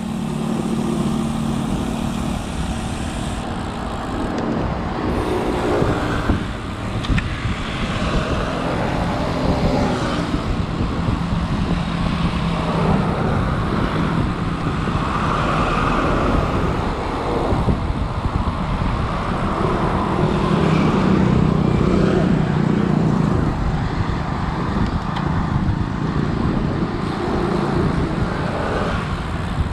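Road traffic: motor vehicles running and passing, with a steady engine hum and a noise that swells and fades as they go by.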